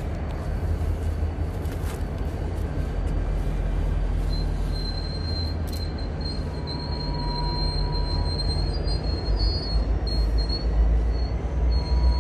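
Freight train rolling slowly across a bridge: a steady low rumble, with high-pitched wheel squeal setting in about four seconds in and coming and going. The rumble grows louder near the end as the diesel locomotive comes across.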